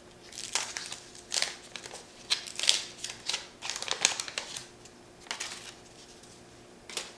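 A wax pack's waxed-paper wrapper being torn open and crinkled: a run of irregular rustles and crackles, then a single click near the end.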